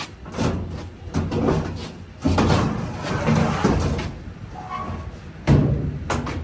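Knocking, banging and scraping as the parts of a disassembled GE dryer are handled, with two sharp loud bangs, one about two seconds in and one about five and a half seconds in.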